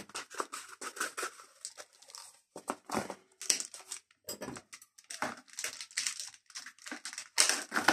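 Brown paper wrapping and a plastic cup rustling and crinkling as they are handled and the cup is slid out of the paper, in short irregular bursts.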